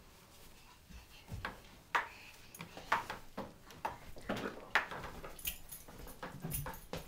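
A dog's collar tags jingling as the dog moves, among scattered soft knocks and thumps, with the jingling strongest near the end.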